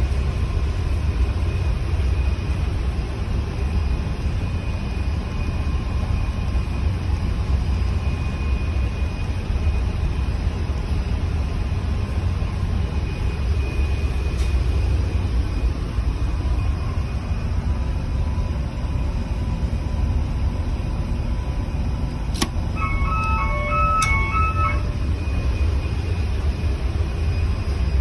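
Steady low drone of a ship's Yanmar auxiliary diesel engine running. About three-quarters of the way through come two sharp clicks and a short run of patterned electronic alarm beeps, as a red indicator lights on the generator panel during the overspeed test.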